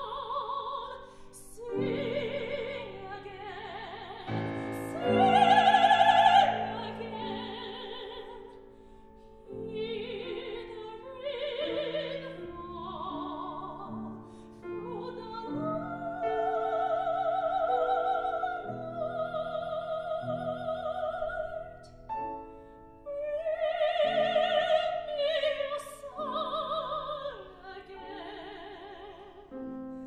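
A classical soprano sings an art song with vibrato, accompanied by a grand piano. She swells to a loud high note about five to six seconds in.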